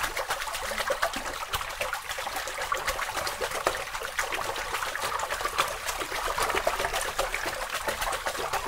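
Water trickling steadily, a dense even patter of small splashy clicks.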